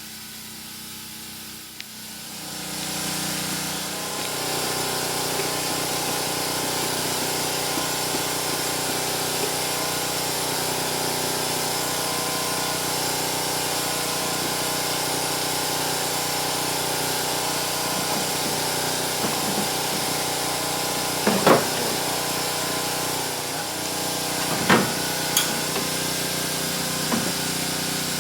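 A motor-driven machine starts up about two seconds in and runs steadily with a hissing edge, with a few sharp knocks near the end.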